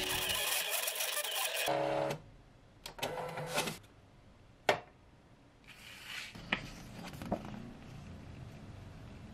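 Electronic vinyl cutting machine's motor and rollers running for about two seconds as it feeds the sheet out, then stopping suddenly. After that come a few sharp clicks and short rustles as the machine is worked by hand and the cut sheet is lifted off.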